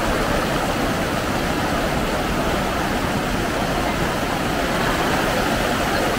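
Swift river water rushing steadily, a loud even wash of noise with no breaks.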